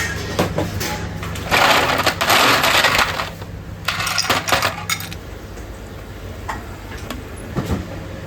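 Clinks and small knocks of dishes and utensils at a ramen stall. A loud rushing noise starts about a second and a half in and lasts nearly two seconds, with a shorter one about four seconds in, over a steady low hum.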